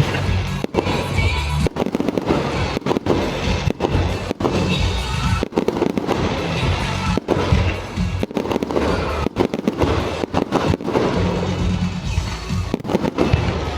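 Fireworks bursting in quick succession over music playing along with the display.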